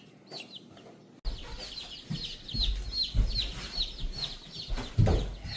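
A crowd of day-old chicks peeping nonstop: many short, high, falling chirps overlapping. From about a second in it gets louder, with low bumps and rumble underneath, the loudest bump near the end.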